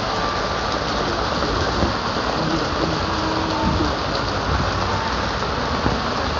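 Heavy rain falling in a steady, even hiss during a thunderstorm.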